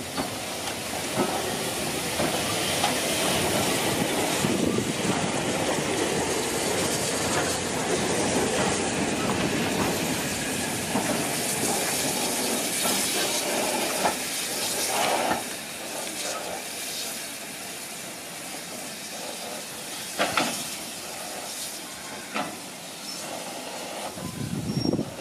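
BR Standard Class 4 2-6-0 steam locomotive No. 76084 drawing into the platform, with a steady loud hiss of escaping steam and running noise. The sound drops noticeably about two-thirds of the way through, leaving a quieter hiss broken by a few sharp knocks near the end.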